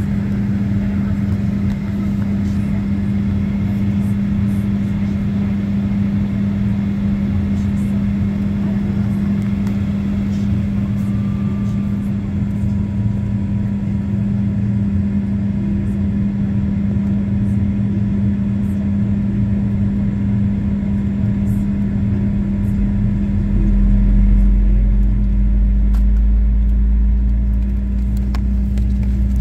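Cabin noise inside a Boeing 737-800 taxiing on its CFM56-7B engines at low power: a steady drone with a strong low hum. A deeper rumble comes in a little over twenty seconds in and the noise swells slightly.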